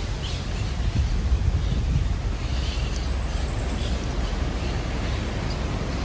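Outdoor ambience: a steady low rumble of wind on the microphone, with a few faint bird chirps.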